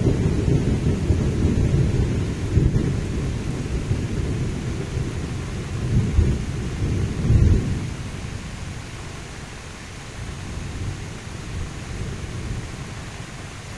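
Wind buffeting the microphone: a low, irregular rumble that swells in gusts and eases off about two-thirds of the way through, leaving a softer steady hiss.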